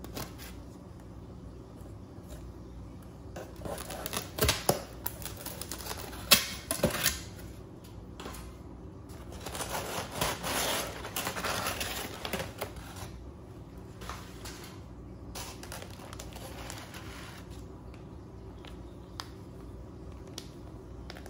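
Shipping-box packaging being handled: sharp clicks and knocks as the foam lid is lifted out, then brown kraft packing paper crinkling and rustling for several seconds near the middle, settling to faint handling of the plastic bag toward the end.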